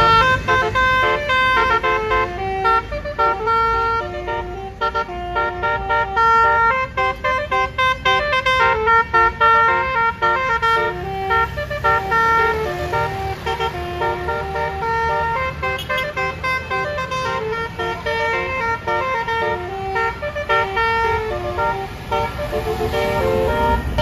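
A bus's 'telolet basuri' multi-horn melody horn playing a long tune: a quick run of steady horn notes stepping up and down several times a second, with traffic running underneath.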